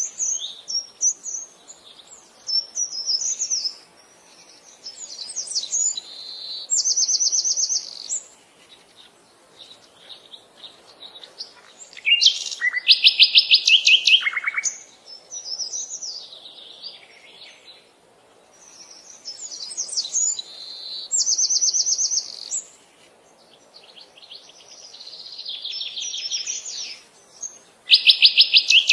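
Songbirds singing: phrases of quick high chirps and fast buzzy trills, repeated in bouts every few seconds, with a faint steady background hum of the outdoors.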